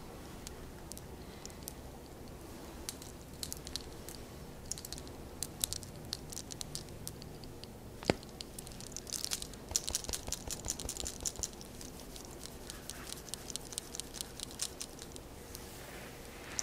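Hands working through a person's hair against the scalp, making small crisp crackles and rustles. There is one sharper crack about eight seconds in, and the crackles come thicker just after it.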